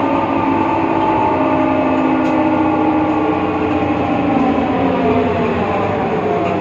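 BredaMenariniBus Avancity Plus city bus under way: a loud gear whine, several pitches at once, slowly falling over road and diesel engine noise. This is the strange sound the uploader blames on a faulty differential.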